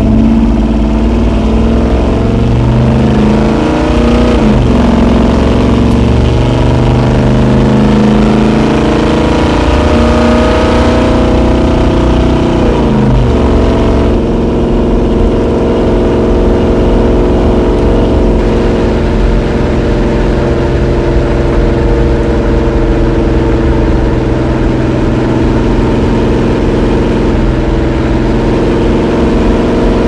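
A 1986 Chevy Suburban's 454 big-block V8, running through 3-inch dual exhaust and heard from inside the cab, pulling under acceleration. The revs climb and drop sharply at an upshift about four seconds in, climb again to a second upshift about thirteen seconds in, then the engine settles to a steady cruise.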